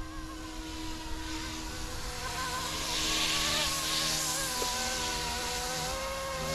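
YXZNRC F09-S RC helicopter in flight: its brushless direct-drive main motor and rotor give a steady buzzing whine whose pitch wavers slightly with throttle. A louder rushing swell comes about three seconds in and fades after about a second and a half.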